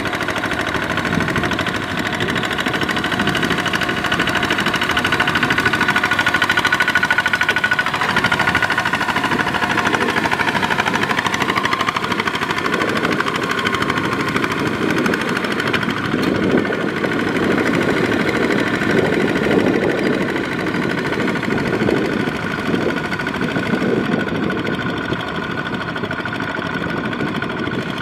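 Two-wheel walking tractor's single-cylinder diesel engine running steadily under load, with the splash and slosh of its steel cage wheels churning mud and water while puddling a flooded rice paddy.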